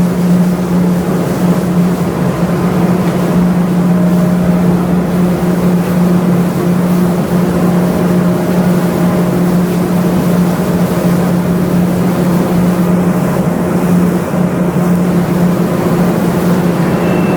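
Ship's engine running steadily: a constant low hum over an even rushing noise, with no change in speed.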